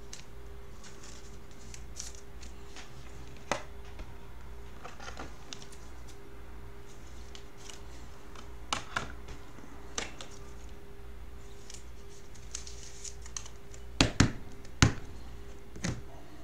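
Trading cards handled and flipped through by hand: scattered soft clicks and taps, with a few sharper clacks near the end, over a steady low hum.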